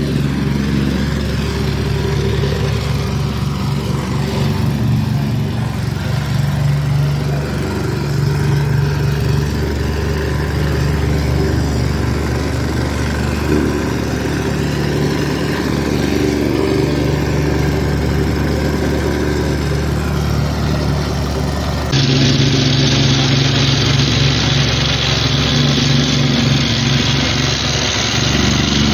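Vibratory plate compactor running steadily, its engine and vibrating plate compacting a layer of backfill. The sound gets a little louder about two-thirds of the way through.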